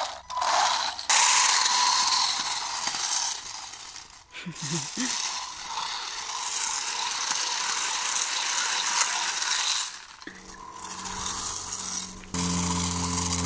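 3D-printed PLA radio-controlled tank driving on asphalt: its plastic tracks clatter and grind along with its electric motors, dipping briefly twice as it slows or turns. Near the end the clatter drops away and a steady low hum comes in.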